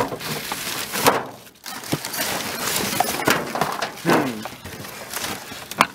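Cardboard boxes and plastic packaging being rummaged through by hand: crinkling and rustling with several sharp knocks as the boxes shift.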